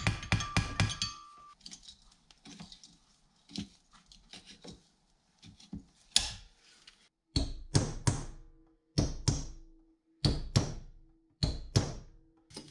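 Locking pliers clanking against the steel driveshaft while closing the CV boot clamp. A quick run of clicks comes first, then a few quiet knocks. From about halfway come sharp metal clanks in twos and threes, and a low ringing tone hangs on after them.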